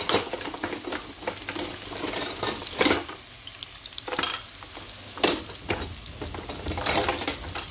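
Chopped onions sizzling in hot oil in a frying pan, with several sharp scrapes and knocks as a wooden spoon stirs them.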